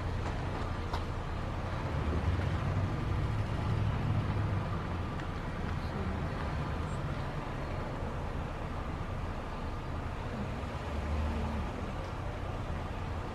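Car driving: steady low engine and road rumble, swelling a little a couple of seconds in and again near the end.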